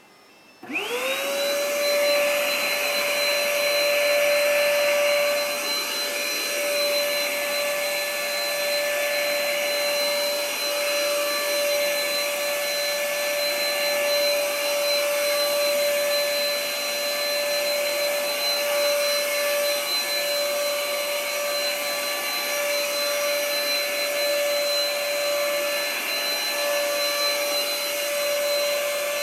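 Bedding sterilizing vacuum cleaner switched on about half a second in, its motor whine rising quickly in pitch as it spins up. It then runs steadily with a high whine over an airy hiss.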